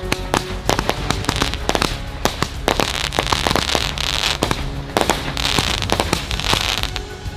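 Homemade multi-shot fireworks barrage, several cheap cakes fused into one 288-shot piece, firing continuously: a rapid, irregular string of launch pops and crackling aerial bursts, with stretches of hissing crackle.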